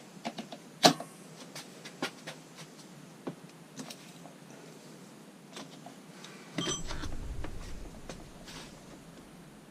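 Scattered light clicks and metallic taps of hand tools and small engine parts being handled, the sharpest a little under a second in. About two-thirds of the way through comes a short stretch of low rubbing and rumbling with a faint metallic ring.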